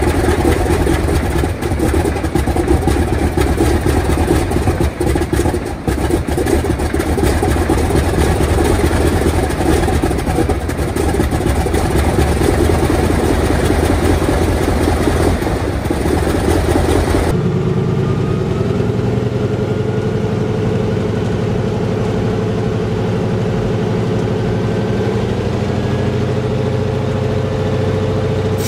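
Antonov An-2's nine-cylinder ASh-62 radial engine running just after a cold start, heard from outside with a dense, rough sound. About two-thirds of the way through it changes abruptly to the engine heard from inside the cockpit: a steadier drone whose pitch rises slowly.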